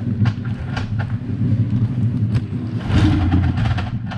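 Motorcycle engine idling with a steady low hum. It runs louder for about a second around three seconds in, and a few sharp clicks sound over it.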